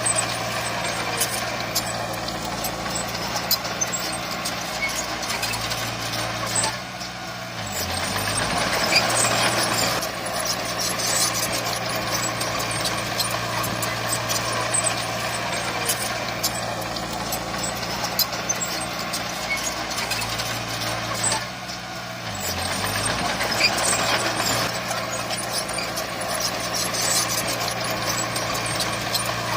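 Heavy diesel earthmoving machinery running steadily. Twice, about fifteen seconds apart, the engine note dips and shifts pitch briefly before settling back.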